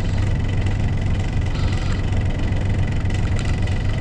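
A canal trip boat's engine running steadily as the boat cruises, a deep, even drone.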